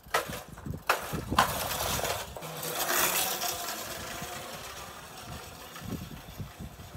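Razor E300 electric scooter being ridden past: a few sharp knocks near the start, then the rolling noise of its tyres and motor swells as it passes close by and fades as it rides away.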